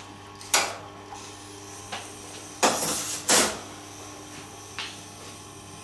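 Tormek sharpening machine running with a steady low hum, while a serrated knife blade scrapes and knocks against the grinding stone and support in several short bursts, the two loudest close together about three seconds in.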